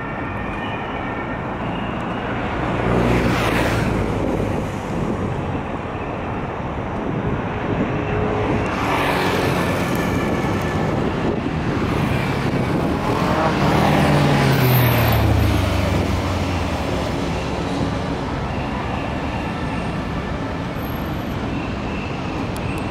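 Road traffic passing close by: a steady rush of tyres and engines, with vehicles swelling past three times. On the last pass, about two-thirds of the way in, a low engine note falls in pitch as the vehicle goes by.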